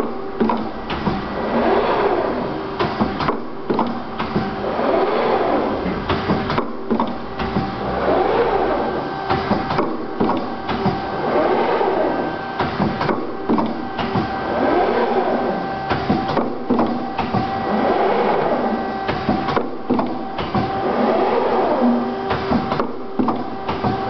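Automatic plastic tank clinching machine running: a steady machine hum with the clicking and clatter of its mechanism, swelling in a regular cycle about every three seconds.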